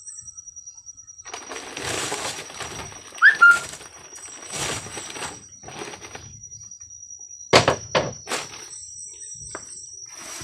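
Machete chopping bamboo in sharp strikes: two about three seconds in and a quick run of three around eight seconds in, with rustling and scraping between them. A steady high insect whine runs underneath.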